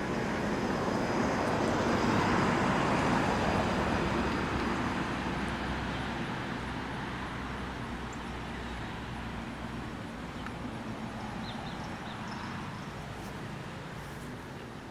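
Road traffic noise, a vehicle going by: a wide rushing sound that swells about two seconds in and then slowly fades away.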